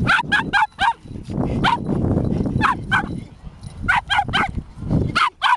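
Border Terrier barking in play over a twig, about a dozen short, high barks in quick clusters of two to four.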